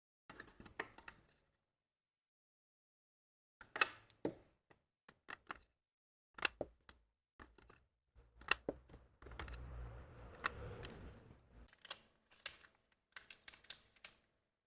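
Scattered sharp clicks and light knocks of small hard objects being handled, with a longer stretch of rubbing or rustling about two-thirds of the way through.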